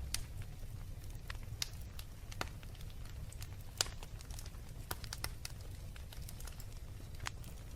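Wood fire in a fireplace crackling: irregular sharp pops and snaps over a steady low rumble of the flames, with one louder pop about four seconds in.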